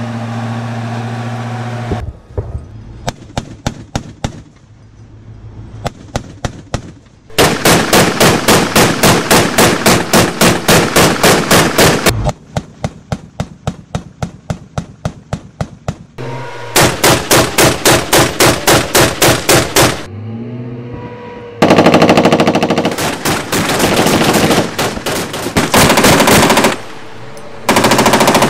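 Bradley fighting vehicles firing their turret guns in long bursts of rapid, evenly spaced shots, several seconds each, with short pauses between them; one stretch in the middle sounds fainter and farther off.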